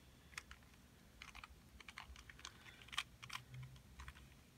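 Faint, irregular plastic clicks and taps from a 2x2 puzzle cube being handled while stickers are pressed onto it.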